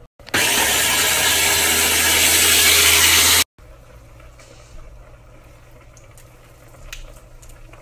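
Food processor motor running for about three seconds, starting and stopping abruptly, as it blends the garlic and oil. Then quiet, with a few faint clicks.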